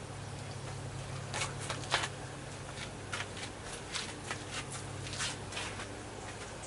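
Irregular light clicks and rustles of hands handling small parts or materials, from about a second in until near the end, over a steady low hum.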